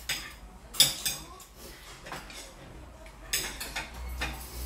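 Metal utensils clinking and scraping against stainless steel bowls at a meal table, in scattered sharp knocks, the loudest just under a second in.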